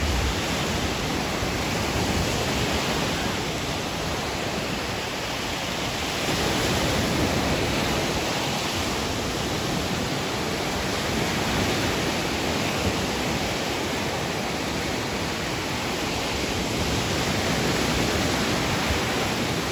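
Lake Michigan surf breaking and washing up on a sandy beach: a steady rushing wash that swells and eases slightly every few seconds.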